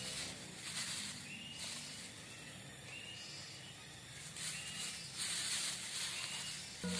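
Plastic bags crinkling as bag-covered hands mix chopped chicken with spices. Behind it, forest insects buzz and a short rising chirp repeats about once a second.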